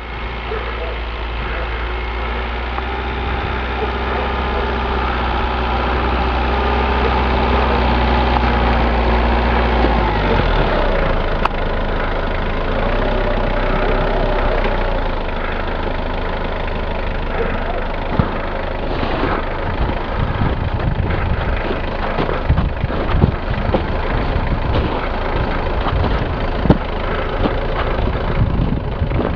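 Mitsubishi L200 pickup's engine running as the truck creeps through deep snow. The steady low engine note changes about ten seconds in, and irregular short knocks follow in the second half.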